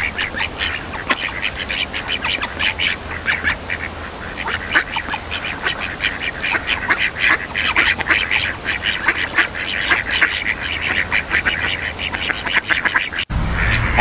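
A flock of ducks quacking and chattering: many short calls overlapping, several a second. The calls break off abruptly near the end.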